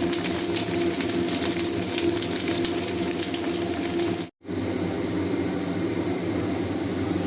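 Slices of radish cake frying in oil in a pan: steady sizzling and crackling over a constant low hum. The sound cuts out for a moment about four seconds in, then carries on as before.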